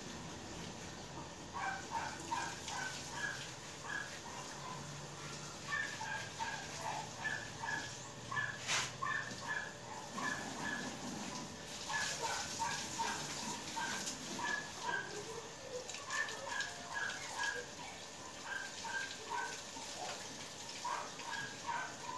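Runs of short, high animal calls, several a second, coming in bursts with brief pauses between them.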